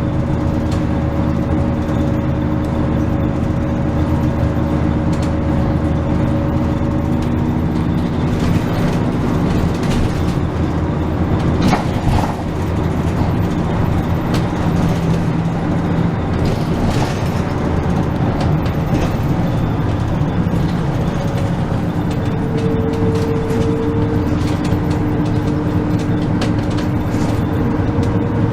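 Bus engine running steadily, heard from inside the cabin, its note shifting as the bus drives on; a single knock or jolt about twelve seconds in.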